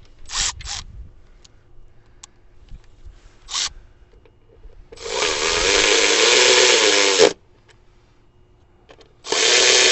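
A few quick clicks, then a cordless drill-driver runs for about two seconds, driving an ignition-coil hold-down bolt back in. It starts again near the end.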